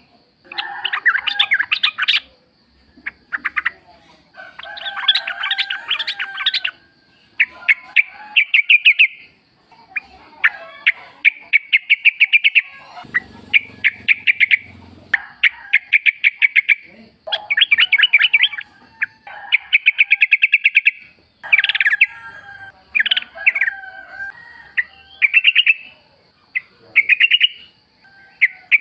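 Yellow-vented bulbuls calling in repeated bursts of rapid, bubbling chatter, each burst lasting a second or two with short gaps between, over and over. A faint steady high whine runs underneath.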